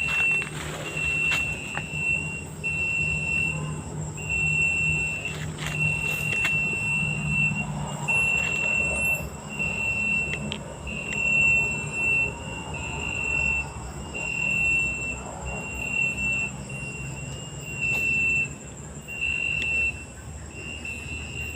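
A bird calling: one high, clear note repeated about once a second without letting up, over a constant high insect trill.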